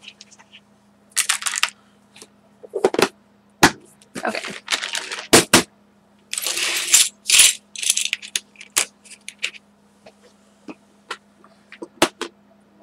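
Small craft embellishments being rummaged through and handled: short bursts of rustling with sharp clicks and clinks of small hard pieces being picked up and set down, scattered irregularly.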